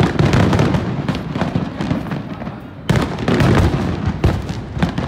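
Fireworks going off: a loud burst right at the start and another about three seconds in, each followed by dense crackling over a low rumble.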